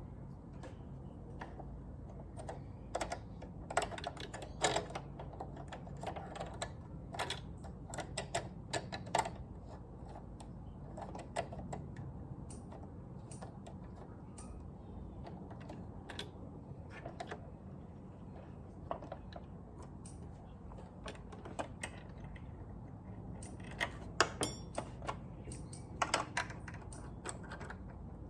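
Irregular clicks and taps of plastic and metal parts being handled on a Brother sewing machine during cleaning, in uneven clusters, over a steady low hum.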